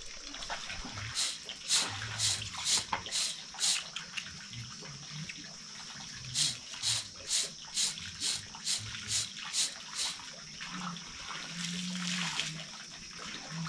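Rhythmic scraping strokes on the ground, about two a second, in two runs with a pause between them, over a steady high hiss.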